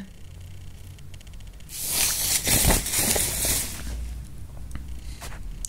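Rustling handling noise lasting about two seconds, a hiss with some crackle, followed by a couple of faint clicks near the end.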